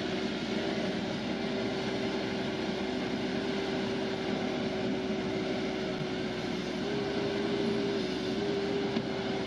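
A large machine's engine running steadily with a constant whine. The whine steps up slightly in pitch about seven seconds in and wavers near the end.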